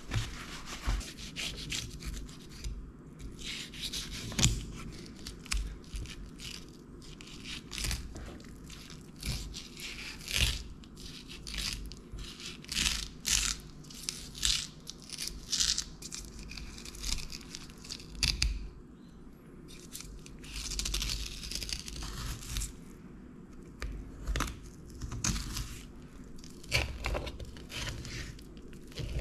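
A filleting knife working through a graphic tuskfish on a plastic cutting board: a long run of short, irregular scraping, crunching and tearing strokes as the blade cuts through the scaly skin and flesh and along the bones.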